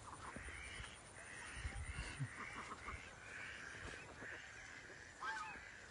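A flock of domestic ducks quacking, harsh hoarse calls repeating about twice a second, with a few low thumps about two seconds in.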